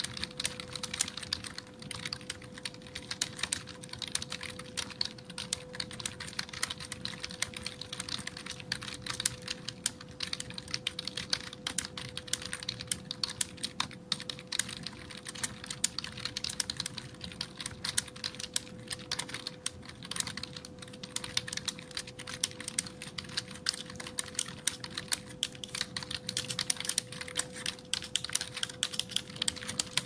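Continuous typing on an Acer PC keyboard: a dense, uneven stream of key clicks, with a faint steady hum underneath.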